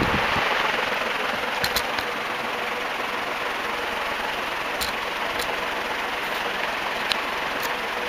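Banvil Gold Line 36-inch metal-bladed ceiling fan running at high speed: a steady rush of air from the blades over a faint motor hum, with a few light clicks.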